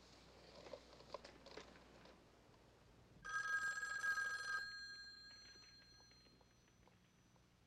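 A desk telephone's bell rings once, for about a second and a half, from about three seconds in, and its ringing fades away over the next two seconds. Faint clicks and rustling come before it.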